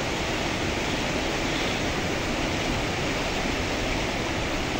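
Fast mountain stream rushing over boulders in small white-water cascades, a steady even rush of water.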